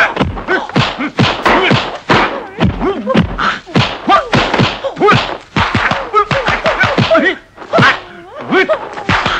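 Kung fu fight sound effects: a rapid run of dubbed punch and block impacts, several a second, mixed with the fighters' short shouts. There is a brief lull about eight seconds in.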